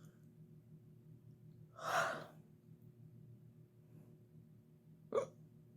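A woman hiccuping twice: a breathy hiccup about two seconds in and a short, sharp one near the end, over a faint low hum.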